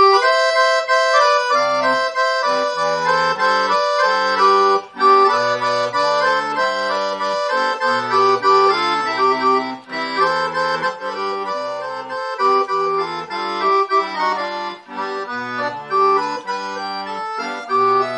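Roland digital piano accordion playing a melody on the treble keys over a steady alternating bass-and-chord accompaniment.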